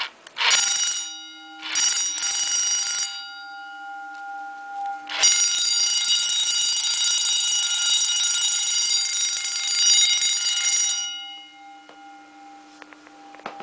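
8-inch Amseco electric vibrating alarm bell, run off 9-volt batteries, ringing in three bursts: a short ring, a ring of about a second and a half, then a long ring of about six seconds that cuts off, the gong still sounding faintly after.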